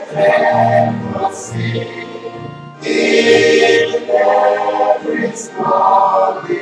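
A group of voices singing a hymn in phrases.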